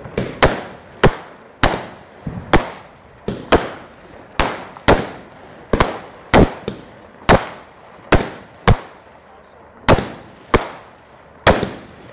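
Fireworks going off in a rapid series of about twenty sharp bangs, roughly one or two a second, each trailing off in an echo.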